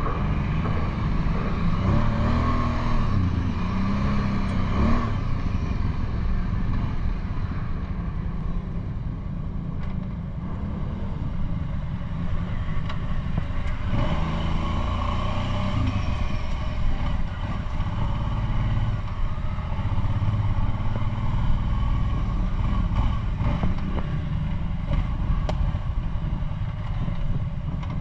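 Kawasaki Brute Force 750 ATV's V-twin engine running under way on a trail, the revs rising and falling a few times in the first seconds. A few sharp knocks come through over the engine.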